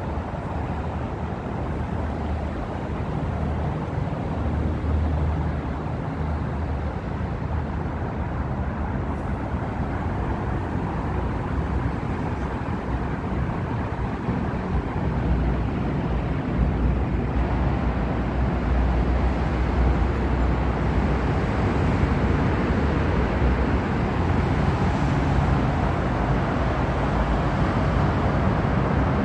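Steady low rumble and hiss of road traffic, echoing in an underground tram stop that lies beneath the roadway; it grows a little louder about two-thirds of the way in.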